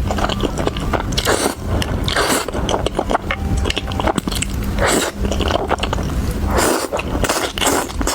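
Close-miked eating sounds: a person biting and chewing food, with many sharp crackles and clicks throughout.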